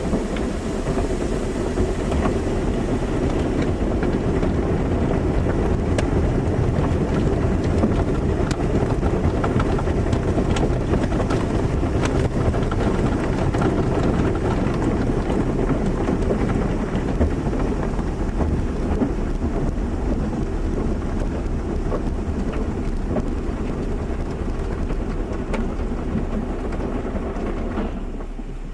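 Car wash running: a dense, steady rush of water spray and machinery, with scattered sharp ticks. Near the end it falls off, leaving a low hum.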